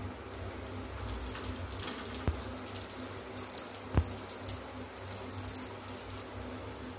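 Bun parotta dough frying in a generous pool of oil on a hot iron tava, a steady fine sizzling crackle. There is a steady low hum underneath, one sharp knock about two seconds in and a louder one about four seconds in.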